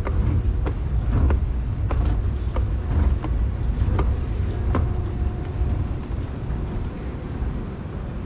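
TTC Flexity Outlook streetcar running, with a steady low rumble and a run of regular clacks from the wheels on the track, about three every two seconds. About five seconds in the clacks stop, the rumble grows quieter, and a faint steady whine remains.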